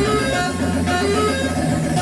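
Live band music: a bright plucked melody over bass and a steady quick beat.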